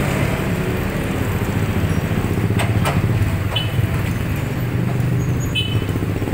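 Steady low rumble of motor vehicle traffic, with an engine running, and a couple of short clicks between two and a half and three seconds in.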